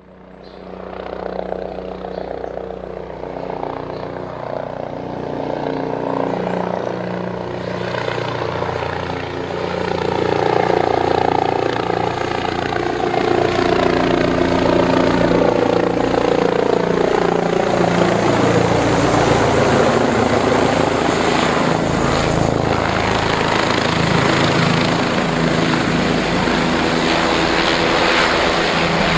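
Helicopter rotor and engine running steadily. It grows louder over the first ten seconds or so, and its tone glides downward through the middle.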